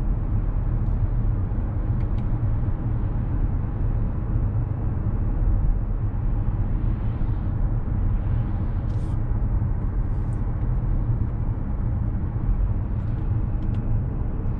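Steady road noise inside the cabin of a 2021 Infiniti QX50 on the move: a low, even rumble of tyres and engine.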